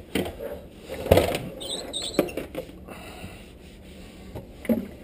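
Wiping and handling noises while cleaning kitchen cabinet fronts and counter: rubbing and rustling with a few sharp knocks, the loudest about a second in, and a brief squeak around two seconds in.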